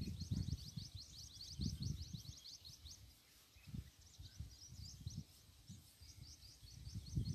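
Wind buffeting the microphone in uneven low gusts, with a bird's rapid, high chirping trill that pauses about three seconds in and then resumes.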